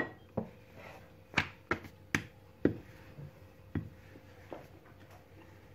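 Rolling pin rolling out dough on a floured worktop, knocking against the surface in a series of short, sharp taps at irregular intervals.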